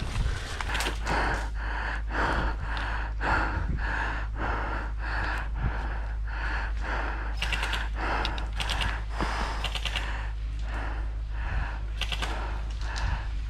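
Footsteps over woodland ground, a steady rhythm of about two steps a second. Two quick clusters of sharp cracks from airsoft guns firing come through, one about halfway and one near the end.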